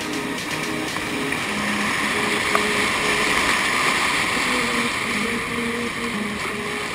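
Whitewater rapid rushing and churning around a kayak, heard from on the boat. It is loudest a couple of seconds in as the boat runs through the broken water.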